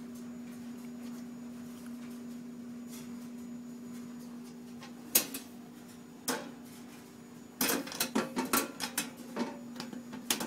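Steady low hum, joined about halfway by sharp clatters and knocks of hard objects being handled, coming in a quick run near the end.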